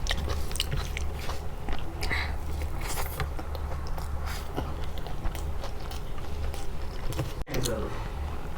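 Close-miked chewing and biting of food, with many short wet clicks from the mouth over a steady low hum. The sound drops out briefly near the end.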